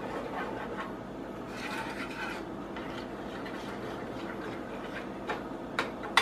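Plastic spoon stirring melted fat in a metal saucepan: a soft, steady scraping and swishing, with a few sharp clicks near the end.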